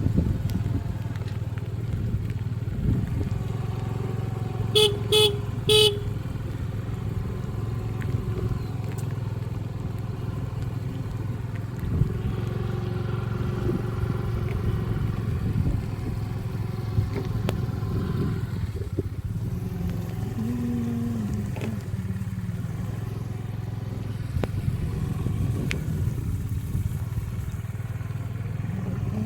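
Motorcycle engine running steadily on the move, with a horn beeping three times in quick succession about five seconds in.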